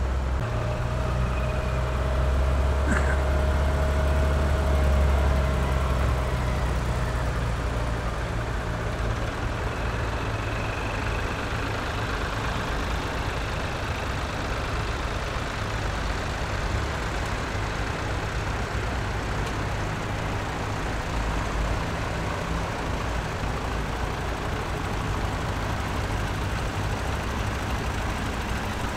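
Tractor engine running steadily with a deep engine note, a little louder in the first few seconds before settling.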